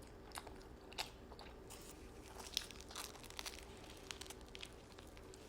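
Close-up chewing of a large mouthful of toasted chicken and bacon sub sandwich, with irregular small mouth clicks.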